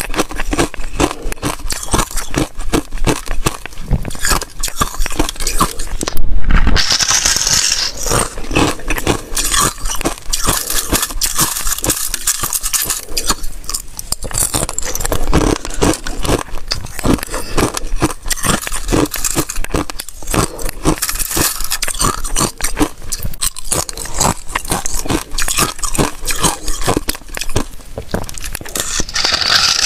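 Thin sheets of ice being bitten, chewed and crushed close to the microphone: dense, irregular crunching and crackling throughout, with one especially loud crunch about six seconds in.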